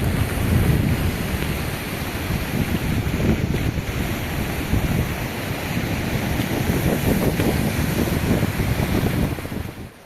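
Wind buffeting the microphone over the steady hiss of heavy rain, cutting off near the end.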